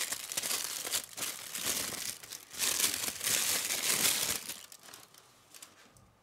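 Thin plastic bag crinkling and rustling as a camera lens is worked out of it by hand. The crinkling is loudest for the first four seconds or so, then dies away.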